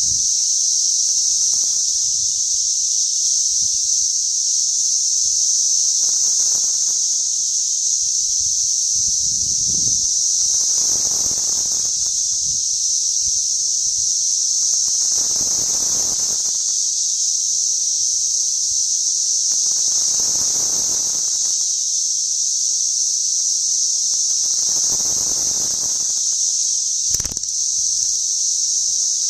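Dense chorus of periodical cicadas: a loud, steady, high-pitched drone. A softer, lower rushing sound swells every four to five seconds, and a brief knock comes near the end.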